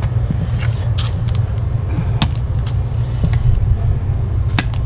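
Steady low rumble with a few sharp clicks scattered through it.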